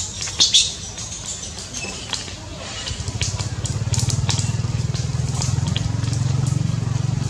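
A motor vehicle engine, the kind of small motorbike engine PANN hints at, running close by: its low, fast-pulsing drone comes up about three seconds in and holds steady. Before it come scattered light clicks and rustles.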